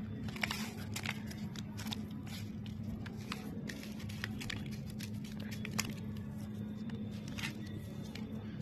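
Hands working and shaping a soft craft material: soft squishing with scattered small clicks and crackles, over a steady low hum.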